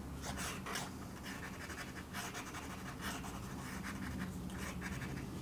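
Fountain pen nib scratching across sketchbook paper in many quick, short, irregular strokes, faint.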